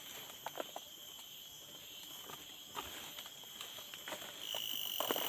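Coffee cherries picked by hand: leaves rustling with small snaps and ticks as berries come off the branch, over a steady high insect chorus in several tones. A louder high insect drone comes in about four and a half seconds in.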